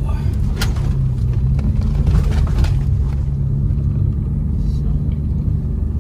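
Car engine pulling up a steep snowy hill, heard from inside the cabin as a steady low drone. A few short knocks and scrapes come in the first three seconds.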